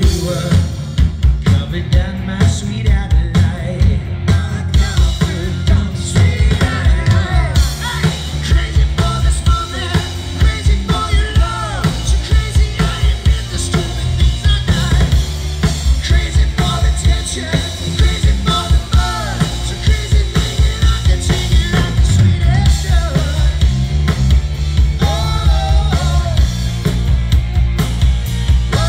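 Live rock band playing loud through a PA, with bass and a drum kit keeping a steady beat of about two hits a second. A singing voice comes in about six seconds in.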